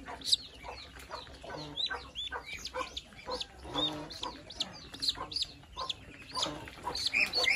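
Ducklings peeping: a steady run of short, high peeps, several a second, with a couple of lower clucking calls about one and a half and four seconds in.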